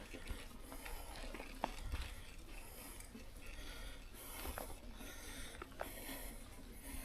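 Bicycle riding on a wet forest track: faint steady tyre and wind noise with many scattered, irregular clicks and ticks.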